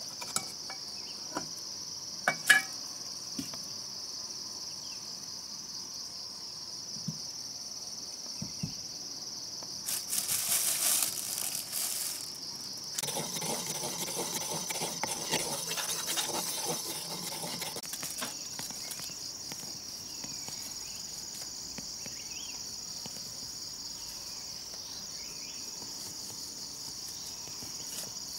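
Steady, high-pitched insect chorus running throughout. A few sharp clicks come in the first few seconds, the loudest about two and a half seconds in. Around the middle there is a stretch of scraping and rustling as paint is stirred with a brush in a bamboo cup.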